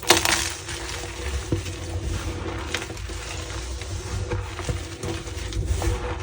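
Gym chalk being crushed and pressed back together by hand: soft crunching and squeaking with scattered small cracks, and a sharp crack right at the start.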